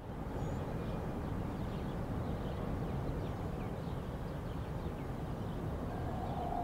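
Outdoor city ambience: a steady low rumble with faint, scattered bird chirps over it.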